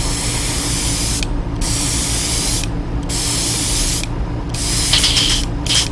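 Airbrush spraying paint in on-off bursts: four hisses of about a second each with short gaps between, then quicker short bursts near the end, over a steady low hum.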